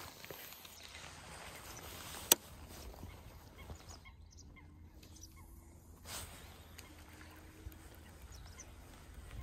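Faint open-air background with one sharp click a little over two seconds in.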